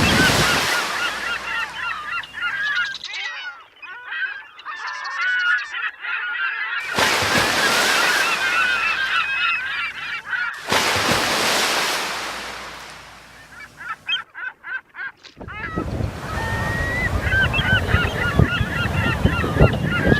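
A flock of geese honking continuously, many calls overlapping. Loud stretches of rushing, washing noise come and go over it: at the start, through the middle, and again from about two-thirds of the way in.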